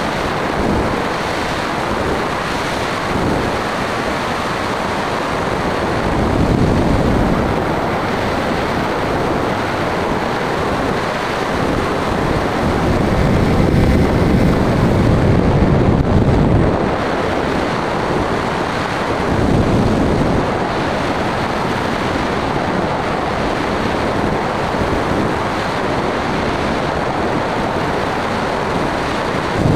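Wind rushing over the microphone of a camera mounted on a small aircraft in flight, a steady rush that swells a few times and is strongest in the middle.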